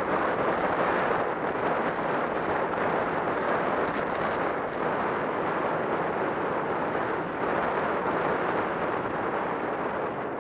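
Steady wind rush over a helmet-mounted camera on a sport motorcycle riding at road speed, with a low engine drone underneath.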